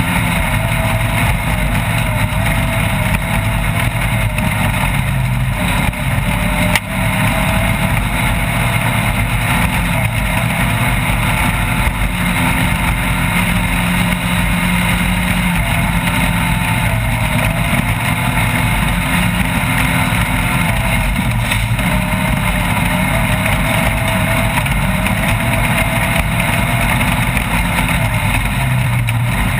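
Off-road race vehicle's engine running steadily under load, its pitch wavering slightly, over a constant rush of noise. A single sharp knock comes about seven seconds in.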